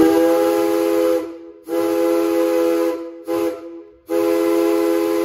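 Maine Central steam locomotive whistle, the one from engine 470 now on an Edaville Railroad 0-4-0, blown in the grade-crossing pattern: two long blasts, a short one, then a long one. Each blast is a steady chord of several notes with a hiss of air over it, loud.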